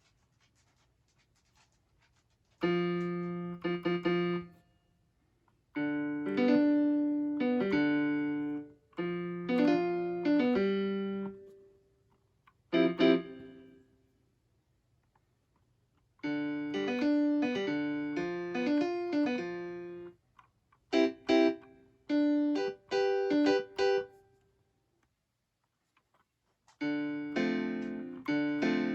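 Akai MPK Mini Play MK3 mini keyboard playing a piano sound through its built-in speaker, in short phrases of chords and notes with brief pauses between them.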